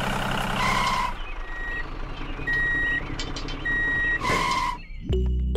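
Heavy-truck sound effects laid over a reversing toy tractor. A diesel-type engine runs for about a second and ends in a short hiss, then a reversing alarm beeps three times at one steady pitch, followed by another hiss.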